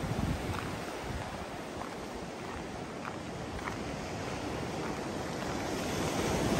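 Surf washing onto a rocky shore, a steady rush of waves, with wind buffeting the microphone.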